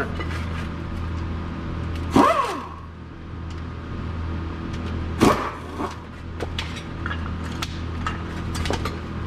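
Steady low hum in the shop, with a few sharp clinks and knocks of metal parts and hand tools being handled at the brake job, the loudest about two and five seconds in.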